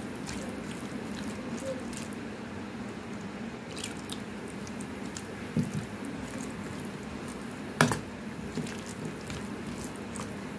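Spoon stirring thick, wet semolina batter with chopped onion, tomato and peas in a stainless steel bowl: a steady wet squelching with a few light clicks of the spoon against the bowl, the sharpest about eight seconds in.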